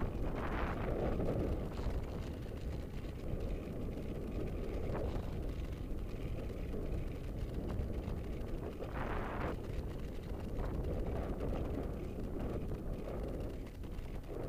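Wind rushing over the microphone of an action camera on a moving road bicycle, a steady low rumble with louder gusts about half a second in and again about nine seconds in.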